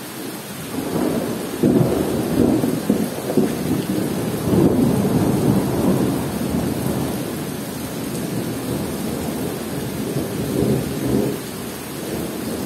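Steady rain falling on forest foliage with rolling thunder. The rumble builds about a second in, stays loud through the middle, eases off, and swells briefly again near the end.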